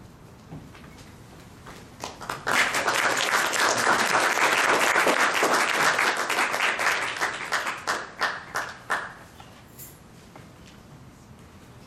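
Small audience applauding, starting about two seconds in and thinning to a few scattered claps before stopping about seven seconds later.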